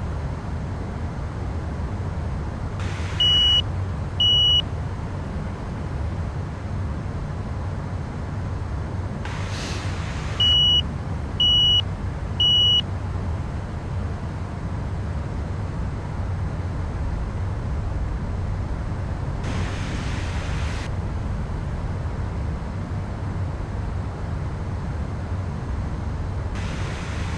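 Steady low cockpit rumble of a Gulfstream jet in flight, with the loud trim-in-motion alert: two short high beeps a few seconds in, then three more about a second apart around ten to thirteen seconds in, sounding while the aircraft is trimming.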